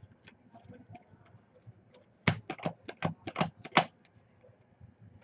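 Typing on a computer keyboard: a quick burst of about nine sharp keystrokes about two seconds in, with faint scattered clicks around it.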